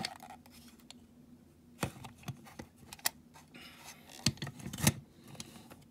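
Scattered light clicks and taps of small toy-car parts being handled and fitted together by hand, with two sharper clicks close together near the end.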